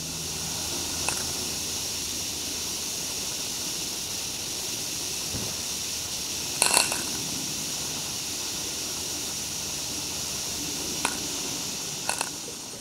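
Live steam garden-scale locomotive hissing steadily as it lets off steam while standing, with a few short sharp clicks about a second in, a double one midway and two near the end.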